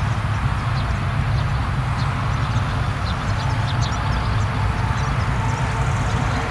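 Two Claas Lexion combine harvesters cutting grain: a steady, loud, low drone of their engines and threshing machinery running under load.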